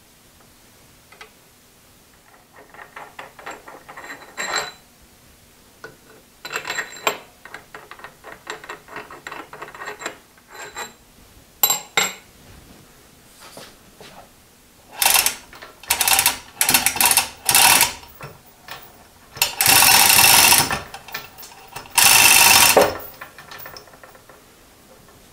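Socket ratchet wrench clicking in quick runs as bolts on a cast-iron drill press column are worked, followed by louder bursts of metal scraping and clanking, the loudest two about a second each near the end, as the heavy head is shifted on the column.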